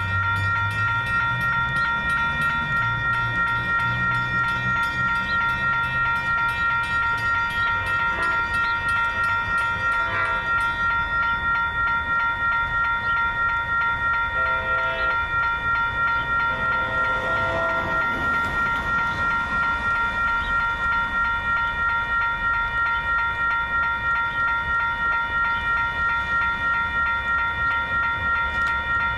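Railroad grade-crossing bell ringing continuously in even, rapid strokes. Faint short horn notes come a few times from the approaching Long Island Rail Road train.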